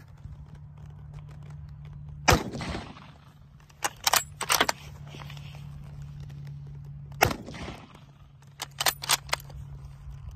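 Two shots from an Eddystone Model 1917 bolt-action rifle in .30-06, about five seconds apart, each with a brief echo. Each shot is followed by a quick run of metallic clicks as the bolt is worked to eject the case and chamber the next round. A low steady hum runs underneath.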